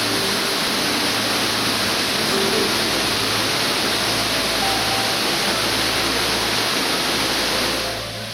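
Waterfall: a steady, loud rush of falling water that drops away sharply near the end.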